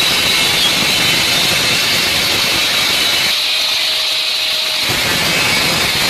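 Handheld angle grinder with a thin cutting disc running at speed and cutting V-notches into a perforated steel cable tray: a steady high whine with a grinding rasp, throwing sparks. About three seconds in the lower rasp thins out for about a second and a half while the whine carries on.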